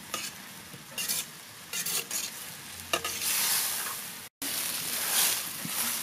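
Chopped tomatoes and vegetables sizzling in a steel wok while being stirred with a perforated plastic spatula, which knocks and scrapes against the pan several times in the first three seconds. The sound drops out for a split second just after four seconds, then the sizzling swells again.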